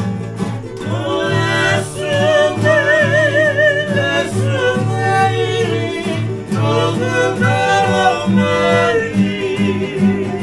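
Several acoustic guitars strummed on a steady beat while a group of men sing together, their voices wavering with vibrato. The singing comes in about a second in and eases off near the end, leaving the guitars.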